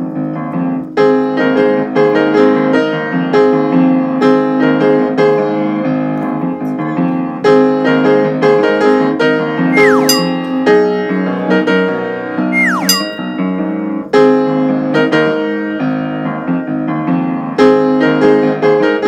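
Upbeat piano background music with a steady, bouncy rhythm. Brief swooping tones slide down in pitch twice, about ten and thirteen seconds in.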